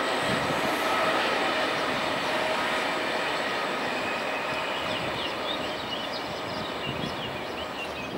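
Double-deck regional passenger train rolling past on the line, a steady running noise that slowly fades as the last cars move away.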